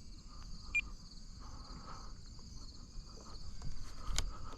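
Steady high-pitched insect chorus, with a single sharp click about four seconds in.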